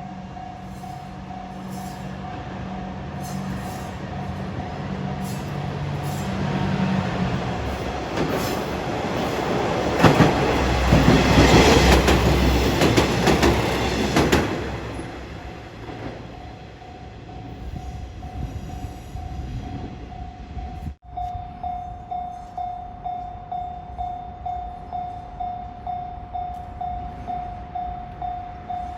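Level-crossing bell ringing throughout while a two-car KiHa 120 diesel railcar set approaches with its engine droning, then passes loudest between about nine and fourteen seconds in with wheel and rail noise. After a brief dropout about twenty-one seconds in, the crossing bell carries on alone at about two strikes a second.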